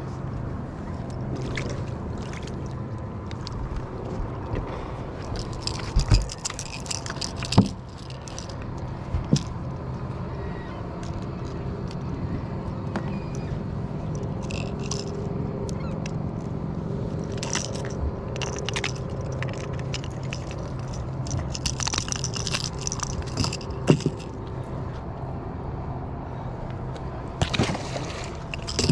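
A striped bass being unhooked on a boat's carpeted deck: scattered knocks and scraping over a steady low hum, then a splash near the end as the fish is thrown back into the water.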